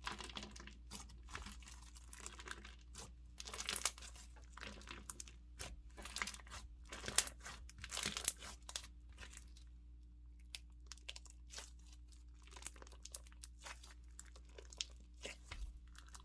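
Clear crunchy slime packed with beads being squeezed, folded and pressed, giving quick crackling and popping sounds. The crackles come thick and fast at first, then thin out to scattered pops in the second half.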